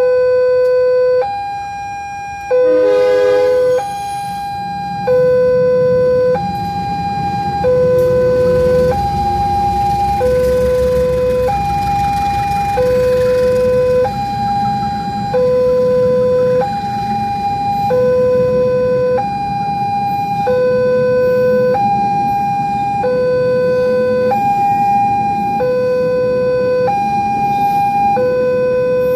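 Railway level-crossing warning siren sounding a steady two-tone alarm, a low and a higher tone alternating about every one and a third seconds. A low rumble swells underneath from about five seconds in.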